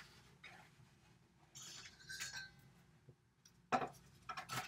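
Faint rustle and scrape of a measuring spoon scooping baking soda from a cardboard box, then two sharp clinks of the spoon near the end, a little under a second apart.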